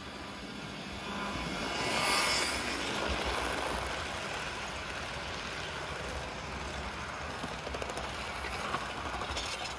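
HO-scale model freight train running past close by, led by a 1939 Varney brass Berkshire 2-8-4 steam locomotive: a steady rolling rumble of motor and wheels on rail that swells as the locomotive passes about two seconds in, then the freight cars' wheels going by, with light ticking near the end.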